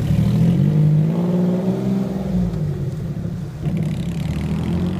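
Engine of a Jaguar-engined Ford Transit van accelerating as it pulls away, its pitch climbing over the first couple of seconds, then easing and holding steady as it drives off.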